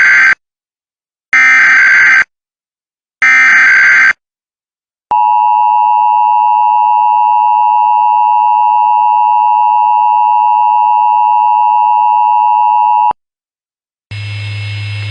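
Emergency Alert System SAME header: three roughly one-second bursts of screechy digital data tones, then the EAS two-tone attention signal (853 and 960 Hz) held steady for about eight seconds and cutting off abruptly. About a second later a low hum comes up as the audio of the test message begins.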